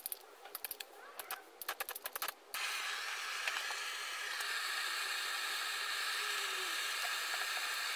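A click lighter sparks rapidly over and over, then a gas blowtorch catches about two and a half seconds in and burns with a steady hissing flame, heating the radiator tank for soft soldering.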